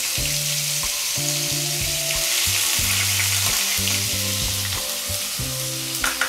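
Chopped onion frying in hot oil and ghee, a steady sizzle just after the onion goes into the pan, with a couple of sharp clicks near the end.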